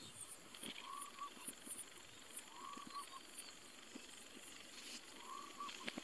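Faint forest wildlife sounds: a short, low call phrase repeated three times, with scattered faint high-pitched chirps and ticks.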